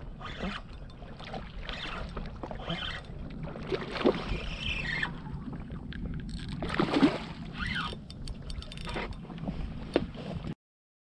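Wind and water lapping around a small skiff while a hooked fish splashes at the surface, with scattered small clicks. The sound cuts off suddenly near the end.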